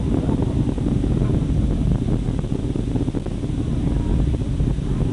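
Distant rumble of Space Shuttle Discovery's launch, heard from about 12 miles away: a steady, deep, crackling noise.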